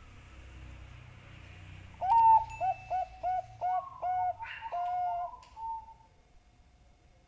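Zebra dove (Bangkok-type perkutut) singing its cooing song: a loud first note, then a quick series of about five short, lower coos and a longer closing note, with a second, higher coo line overlapping near the end.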